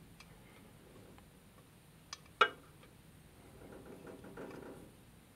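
Small metallic clicks of a screwdriver working the terminal screw on a CO2 laser tube as the wire is screwed down. There is a sharp click about two and a half seconds in, just after a fainter one, then soft handling rustle.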